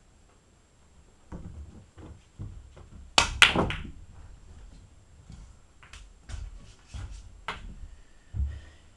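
Pool cue striking the cue ball with a sharp click, followed a quarter-second later by the louder crack of the cue ball hitting an object ball, about three seconds in. Several lighter clicks and dull knocks are scattered before and after.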